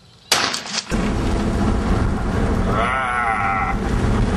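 A sudden loud clatter of sharp clicks, then heavy low wind rumble buffeting the microphone. About three seconds in comes a wavering, bleat-like cry with a quavering pitch.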